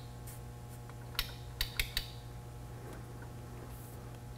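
A few sharp clicks from a sPOD switch-panel push-button switch: a single click, then three quick ones, in the way a switch is double-clicked to set off its strobe and flash function. A steady low hum runs underneath.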